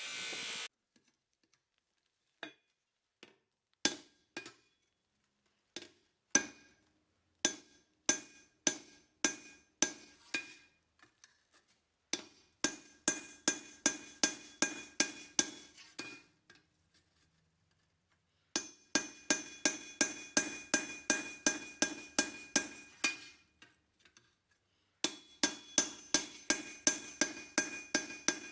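Hand hammer striking steel on an anvil, the anvil ringing after each blow: a few single blows spaced apart, then three runs of quick blows about three or four a second with short pauses between.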